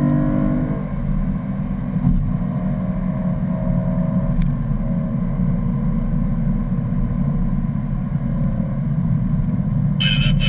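In-cabin sound of a 2011 BMW M3's V8 on track at speed, under a steady rumble of tyre and wind noise; a clear engine tone fades about a second in.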